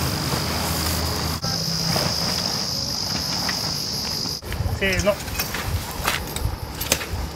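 Summer insects trilling in one steady, high-pitched note; it cuts off about four and a half seconds in. Light knocks and rustling follow.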